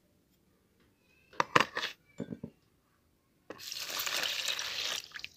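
A few sharp clinks of a metal spoon and glass against the bowl, then milk poured from a glass onto a pile of sugar, a steady splashing pour lasting about a second and a half near the end.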